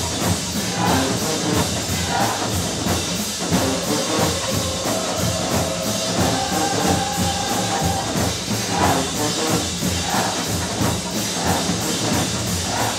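Marching band music: drums keep a steady beat while brass holds long notes through the middle.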